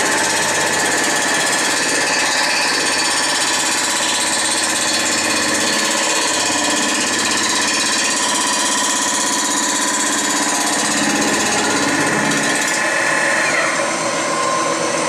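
A milling machine's surfacing cutter taking a cut across the face of a Ford Model A cast-iron cylinder head to flatten the warped surface: a loud, steady rapid machining chatter with a high whine in it. The whine stops near the end.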